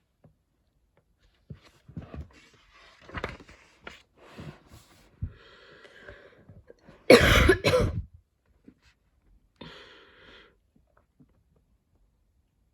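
A woman coughing from a lingering cough: a run of short coughs and throat clearing, audible breaths between, and the loudest, a pair of hard coughs, about seven seconds in.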